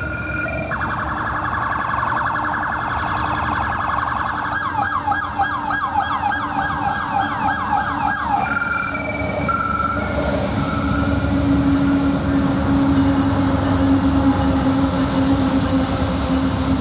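An emergency vehicle siren wails for about eight seconds, changing partway through to rapid rising-and-falling sweeps, then stops. Under it the diesel locomotives of an approaching BNSF freight train rumble, their engine drone growing louder in the second half.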